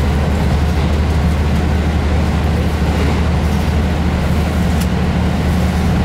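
JR Hokkaido KiHa 183 series 5200 diesel railcar running at speed, heard from inside the front of the car: a steady low engine drone under even wheel-and-rail noise.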